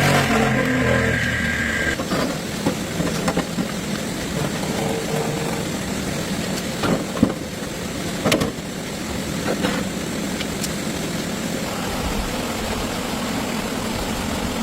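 Tractor engine: a revving note drops away in the first two seconds, then the engine runs on with a steady low rumble, and a few sharp knocks or clicks come through around the middle.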